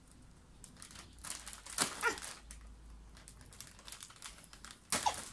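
Plastic parcel wrapping crinkling and tearing as it is picked and pulled open by hand with a small tool, because no scissors are at hand. It comes in irregular bursts, the loudest about two seconds in and again near the end.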